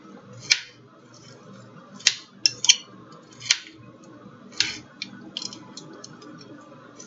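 A metal utensil clinking and scraping against a ceramic baking dish while chickpea salad is tossed: about seven sharp, irregular clinks spread through the stretch.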